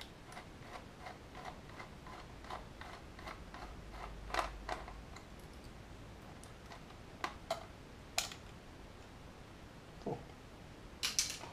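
Small screwdriver turning a body-shell screw out of the underframe of a Heljan O gauge Class 45 model locomotive: light, even ticks about three a second for the first few seconds, then a few sharper separate clicks, the loudest near the end.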